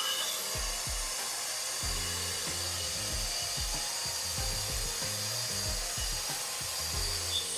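Background music with a steady beat, about two kicks a second with a bass line coming in about two seconds in, over a steady hiss.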